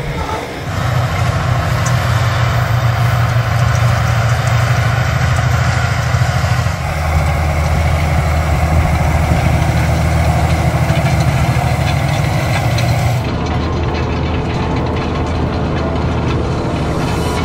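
Fendt 936 Vario tractor's six-cylinder diesel engine running steadily while pulling a 10 m disc cultivator. Its tone shifts twice, about seven seconds in and again near thirteen seconds.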